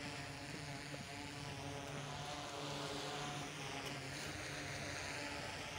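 Multirotor camera drone flying overhead: a steady propeller buzz that holds its pitch, with a hiss above it that sweeps slowly as the drone moves.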